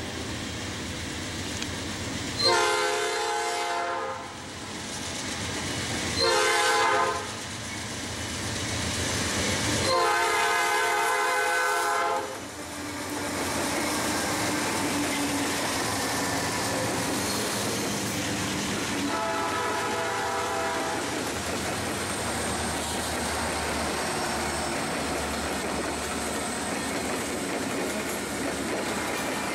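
The lead GE Dash 9-44CW locomotive of a Norfolk Southern freight sounds its chord air horn for a grade crossing: a long blast, a short one and a longer one, then a fainter blast about two-thirds of the way in. From about halfway in, the diesel locomotives pass close by, their engines and wheels on the rails making a steady rumble and clatter.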